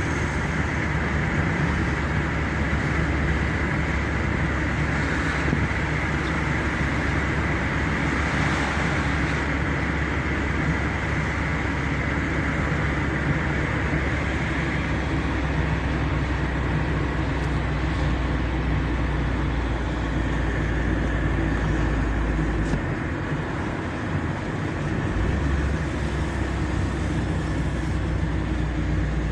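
Car driving along a road: steady engine and tyre noise with a low hum, easing off briefly for a couple of seconds past the middle before picking up again.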